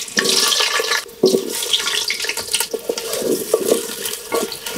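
Raw potato pieces frying in hot mustard oil: a steady sizzle full of small crackles, with a brief lull about a second in.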